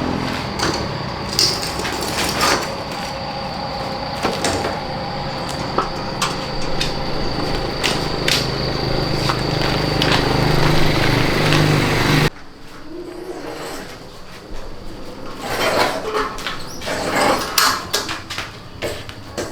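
A steady engine-like hum with scattered knocks, which cuts off abruptly about twelve seconds in. After that come irregular metallic clinks and knocks of hand tools being handled.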